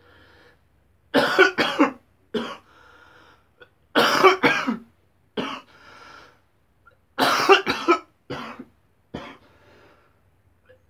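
A man coughing hard in three fits of two or three coughs each, about three seconds apart. Between the fits come single smaller coughs and wheezy breaths.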